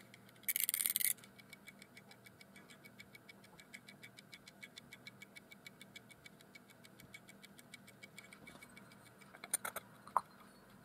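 Clockwork timer movement of a mechanical 360° time-lapse camera rotator, its gears exposed, ticking fast and evenly as it runs down. Near the start there is one short loud rattle, and near the end a few clicks and a brief ring as the housing is handled.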